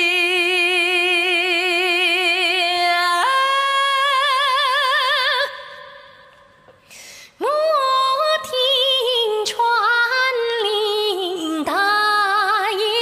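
A male singer in a high, clear register holds a long final note with wide vibrato, steps up to a higher held note, and lets it fade. After a gap of about two seconds he starts a new phrase in Kunqu opera style, gliding and ornamenting between held notes.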